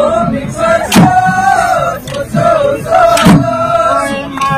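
Group of voices chanting a wavering, sung melody to accompany the Sonowal Kachari huga folk dance. Two sharp beats fall about two seconds apart.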